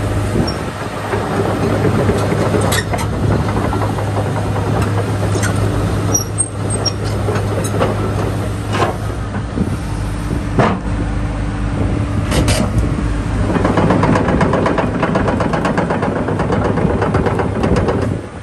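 Komatsu PC210 excavator's diesel engine running steadily under work as the boom and bucket move, with scattered sharp metallic clanks. About three-quarters of the way through, a denser, fast rattling clatter joins in.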